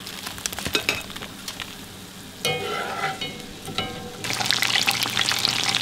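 Batter-coated fish frying in hot oil, crackling and sizzling, denser and louder in the last second and a half. A brief ringing sound, heard twice, comes in the middle.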